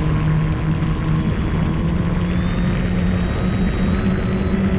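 OMP Bighorn RC airplane's electric brushless motor and propeller running at steady power, heard from a camera mounted on the plane, with a steady hum and a high motor whine that creeps up in pitch after about two seconds, over rushing air noise.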